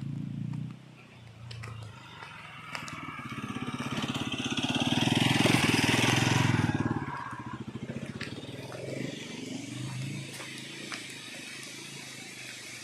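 A motor vehicle passing on the road: its engine swells up over a few seconds, is loudest about six seconds in, then fades away.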